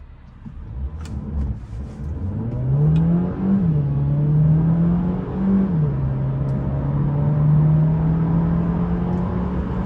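A 2020 Mercedes CLA 200's 1.3-litre turbocharged four-cylinder accelerating hard from a standstill. About two seconds in the engine note starts to climb steadily. It drops at two quick upshifts of the dual-clutch gearbox, about three and a half and six seconds in, and rises again after each.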